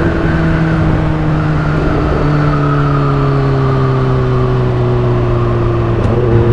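Motorcycle engine running while riding, its note slowly falling in pitch and picking up again near the end, over a steady rush of wind.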